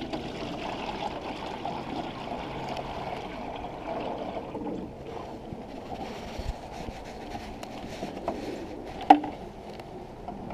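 Sugar water pouring and trickling from a plastic bucket, a steady wash that eases off about halfway through. A single sharp knock comes about nine seconds in.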